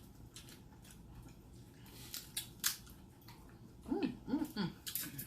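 Close-up eating sounds from someone eating crab legs: scattered sharp clicks and smacks of mouth and shell. About four seconds in, a brief wordless voice sound of a few rising and falling notes.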